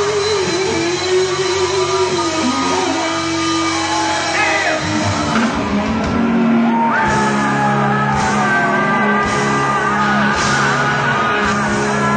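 Rock band playing live with loud, shouted singing, heard in a large hall. Several held and bending notes sound over the band, and from about five seconds in a steadier low part takes over.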